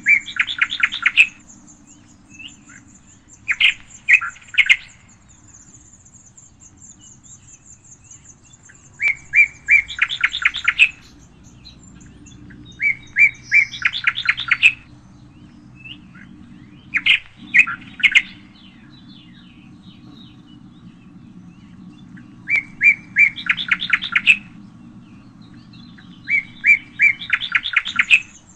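A songbird singing the same short phrase over and over, roughly every four seconds: a few separate notes that run into a fast trill. A thinner, very high trill from another bird comes and goes, over a faint low hum.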